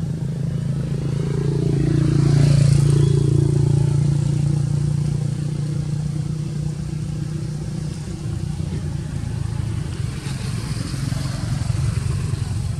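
A steady engine hum that swells louder about two to three seconds in, then settles back to a steady drone.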